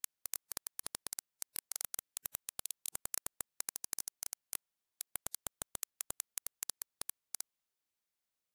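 Background music chopped into rapid short fragments with dead silence between them, stopping about seven seconds in.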